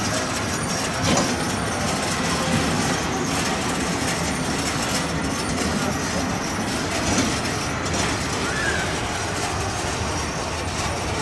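Elevated-rail kiddie ride car rolling along its steel track, a steady rolling rumble with a few light clacks.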